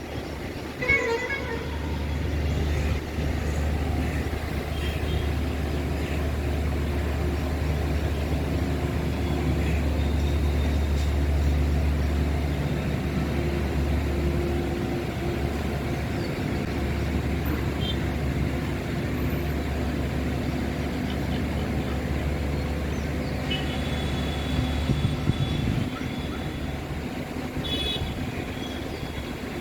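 Steady low rumble of road traffic, with a few brief horn toots and short high-pitched calls over it.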